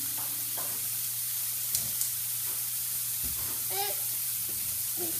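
Pancake batter sizzling steadily in a hot pan, with two light clicks about two seconds in.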